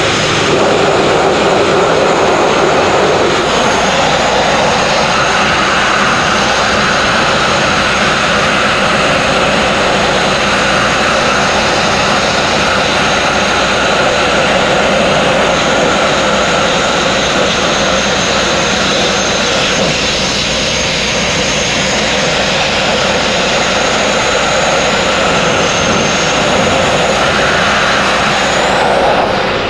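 Abrasive sandblasting nozzle blasting continuously against the steel rudder and skeg of a narrowboat: a loud, steady hiss of compressed air and grit stripping epoxy paint from the steel.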